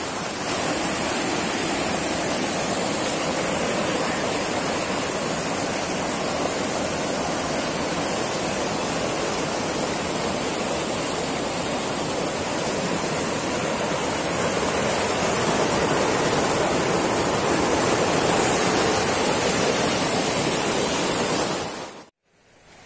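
A shallow forest stream rushing steadily over rock slabs and small rapids, with a thin, steady high-pitched hiss above it. It fades out suddenly near the end.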